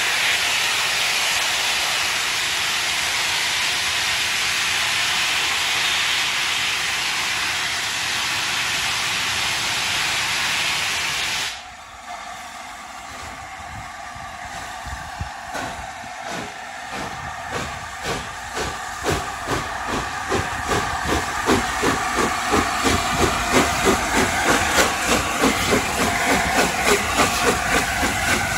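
LNER A4 steam locomotive 60007 Sir Nigel Gresley: a loud hiss of escaping steam, blown from low at the front, cuts off suddenly after about eleven seconds. A few seconds later its exhaust beats begin, slow at first, then quickening and growing louder as the engine gets under way.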